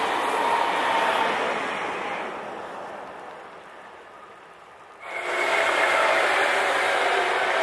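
Passenger train on the rails fading away as it recedes over the first few seconds. About five seconds in, another passing train, a locomotive hauling passenger coaches, comes in suddenly and loud, with rail noise and a few steady whining tones over it.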